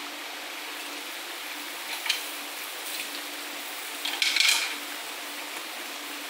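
Seafood paella simmering in a wide steel paella pan with a steady sizzle, and mussel shells clicking against the pan as they are set around the edge, a small click about two seconds in and a louder clatter about four seconds in.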